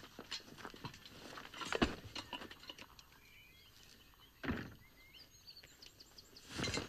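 Film scene sound: scattered footsteps and small knocks, busiest in the first two seconds, then faint bird chirps with two soft low thumps near the middle and the end.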